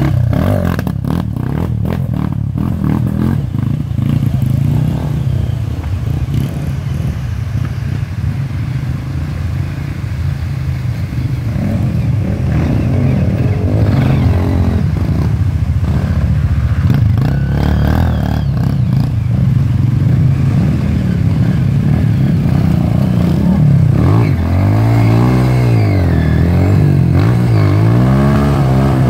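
Dirt bike engines running hard under load as bikes climb a muddy bank, their rear wheels spinning in the mud. Over the last few seconds an engine revs up and down again and again.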